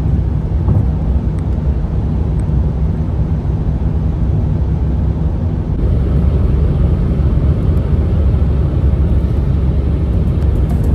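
Steady road rumble from a Mercedes-Benz C-Class (W205) at motorway speed: tyre roar with a low engine hum. It grows a little louder and hissier about six seconds in.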